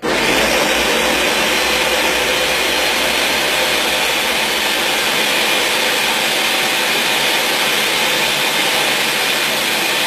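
Ninja countertop blender switched on and running steadily at high speed, pureeing peeled lemons into liquid.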